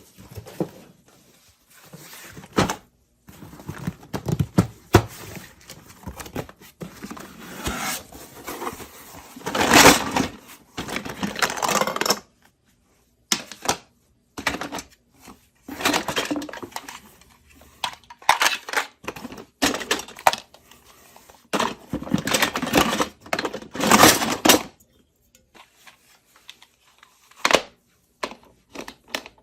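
Unboxing a miniature steel toy kitchen set: packaging rustling and tearing, with irregular clicks and clinks of small pieces being handled, in bursts with short pauses.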